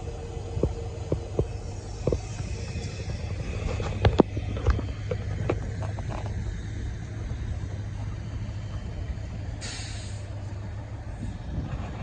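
Mercedes-Benz Unimog diesel engine running steadily, with several sharp knocks in the first half and a short hiss about ten seconds in.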